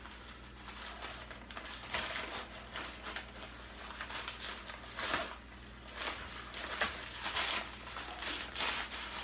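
Irregular rustling and crinkling as a fabric tripod carry bag is handled and opened, with plastic wrapping crinkling as the tripod inside is pulled out.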